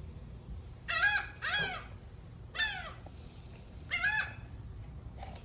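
Seagulls calling: four loud, harsh calls, each arching and then dropping in pitch, two in quick succession about a second in, then one near the middle and one about four seconds in.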